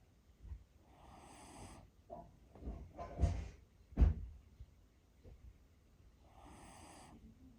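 Mame-shiba snoring and snorting in its sleep: two drawn-out snoring breaths about five seconds apart, with a cluster of short, sharp snorts between them, the loudest about four seconds in.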